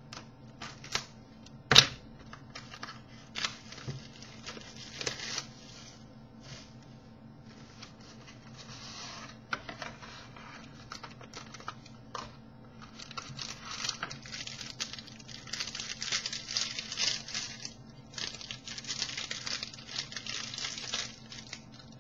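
A trading card box's wrapper being torn open and crinkled. There is a sharp snap about two seconds in, then a few scattered clicks, and dense crinkling through the second half.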